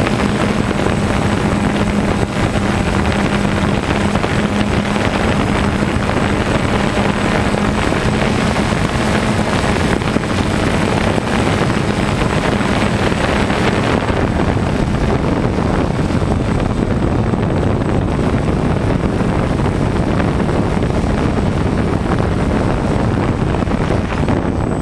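DJI Phantom 1 quadcopter's four propellers and motors, heard from the camera riding on the drone: a loud, steady whir with a steady hum for the first several seconds. The higher part of the noise thins out from about halfway through.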